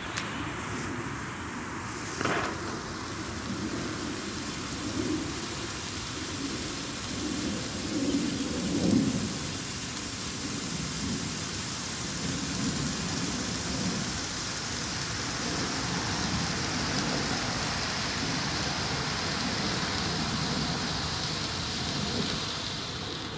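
Jorge JF02 blue Category F1 firework fountain burning: a steady rushing hiss of spraying sparks, with a single sharp pop about two seconds in. The hiss stops at the very end.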